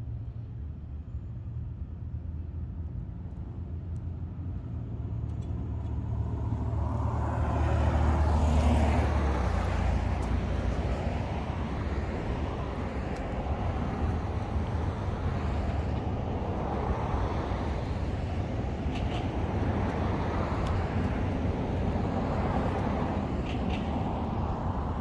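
A motor vehicle running with a steady low hum. About seven seconds in, a rushing road or wind noise swells up and stays, rising and falling gently.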